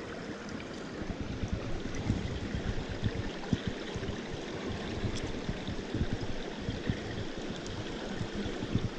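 Small stream running steadily over riffles, an even rushing and gurgling of water, with irregular low thumps underneath.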